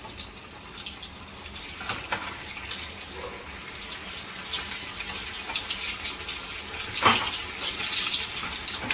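Aloo chicken vadi pieces deep frying in a kadai of hot oil: a steady sizzling hiss with scattered crackles and one louder pop about seven seconds in.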